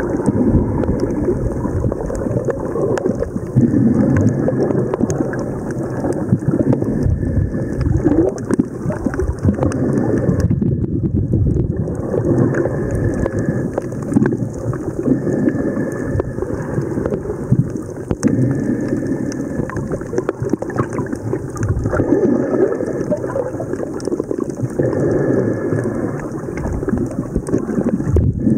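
Continuous muffled, rumbling water noise picked up by a camera under the sea while snorkeling, churned by swell, with no distinct events.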